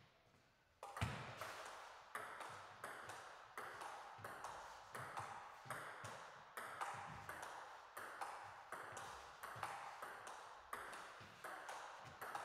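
Table tennis rally: the ball clicking off the players' bats and bouncing on the table in a steady back-and-forth, about two to three hits a second, starting about a second in.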